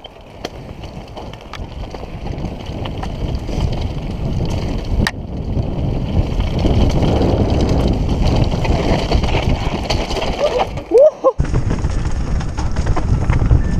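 A mountain bike speeding down a rough dirt trail: wind rushing over an action camera's microphone mixed with tyre rumble and the rattle of the bike over the ground, growing louder over the first few seconds as it gains speed. About eleven seconds in it cuts out abruptly for a moment, then carries on.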